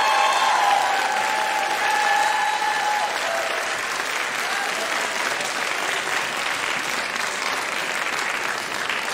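Audience applauding steadily in a large hall, with a high voice calling out over the clapping for the first three seconds.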